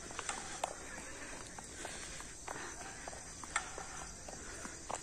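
A steady high-pitched chorus of insects, with irregular footsteps and small clicks on a dirt path; the sharpest click comes a little past halfway.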